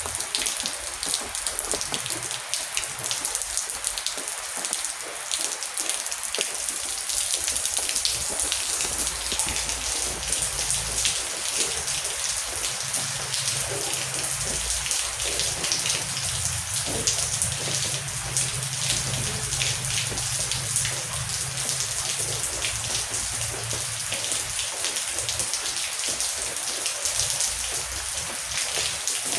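Heavy rain falling steadily, a dense hiss of many drops. A low rumble of distant thunder swells for several seconds around the middle.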